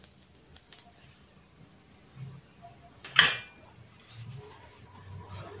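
One short metallic clatter, a utensil against the pan or counter, about three seconds in, with a brief ring; otherwise only a couple of faint clicks.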